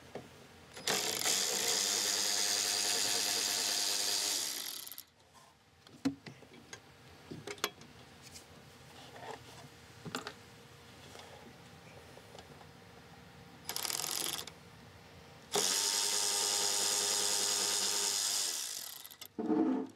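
Cordless power tool running in three bursts (one of about four seconds starting a second in, a short one around fourteen seconds, and another of about four seconds near the end), spinning out bolts on the intake manifold. Light clicks and clatter of the tool and socket come between the bursts.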